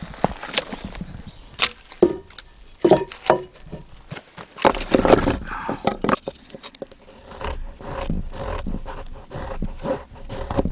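Firewood being worked for a campfire: scattered sharp knocks and cracks of splitting wood, a dense splintering burst about halfway through, then a run of quick scraping strokes near the end.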